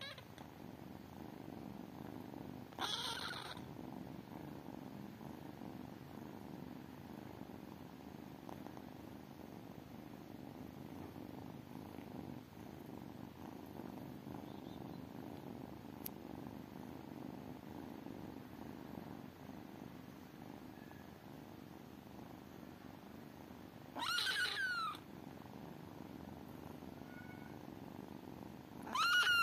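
Kittens purring steadily, a continuous low rumble. It is broken three times by short, louder, high-pitched calls: once about three seconds in and twice near the end.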